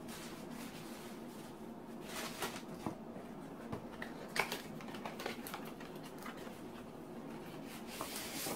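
Handling of a small cardboard box and its packaging: scattered light crinkles, taps and clicks of paper and card, a little louder about two, four and eight seconds in, over a faint steady hum.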